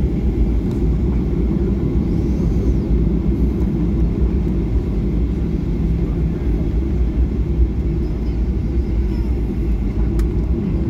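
Cabin noise inside a Boeing 737-800 taxiing: the CFM56 jet engines running at low taxi thrust give a steady, even low rumble, with no spool-up.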